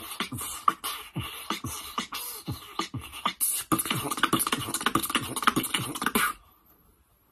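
Solo beatboxing: mouth-made kick drums that drop in pitch, with hissing hi-hat and snare sounds, in a steady beat. The pattern grows busier about halfway through, then cuts off suddenly about a second before the end.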